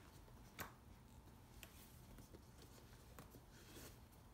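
Near silence with faint handling sounds from the leather backpack: a soft tap about half a second in and a fainter tick a second later.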